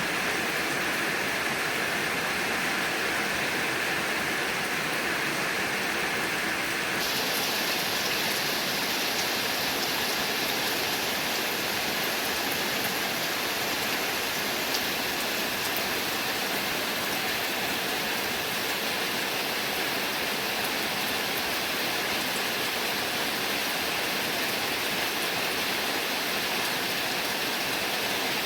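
Heavy rain falling steadily as a dense, even hiss. About seven seconds in, the hiss abruptly turns brighter.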